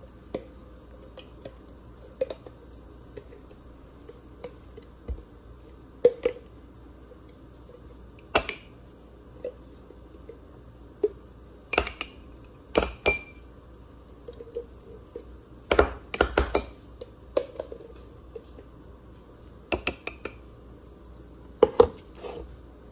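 A spoon clinking and scraping against a small glass mason jar as mayonnaise is scooped into it. It makes irregular sharp clinks with a short glassy ring, a dozen or so, bunched more closely in the middle of the stretch.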